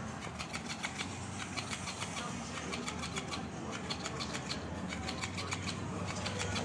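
Electric flopping-fish cat toy running: a steady low motor hum with runs of rapid clicking.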